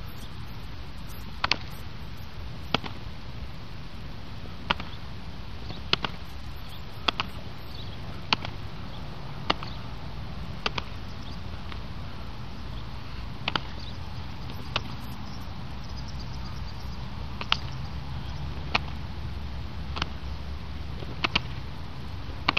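Sharp slaps roughly every second, with a couple of short pauses: a hand smacking the foot at the top of repeated kung fu kicks. A steady low rumble runs underneath.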